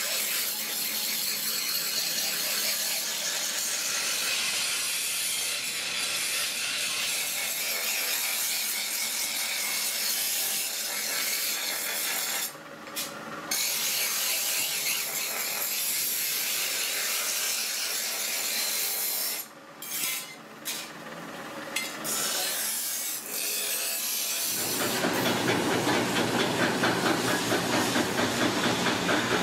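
Steel trowel blade ground on a spinning grinding wheel: a steady, high-pitched grinding hiss that stops briefly twice as the blade is lifted off the wheel. About 24 seconds in it gives way to a louder, lower, pulsing noise from a small motor-driven wood lathe.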